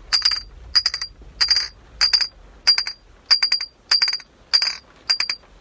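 Three empty glass bottles worn on the fingers of one hand clinked together in a steady rhythm: about nine ringing clinks, one every two-thirds of a second, each a quick double or triple tap.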